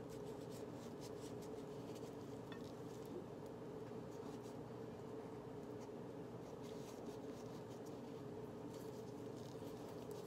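Small knife paring the skin off a ripe pawpaw: faint, irregular scraping and slicing strokes over a steady hum.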